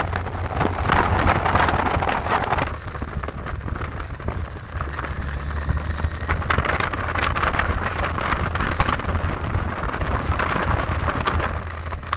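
Riding wind rushing over the microphone of a moving motorcycle, swelling and easing several times, over the low steady hum of the motorcycle's engine.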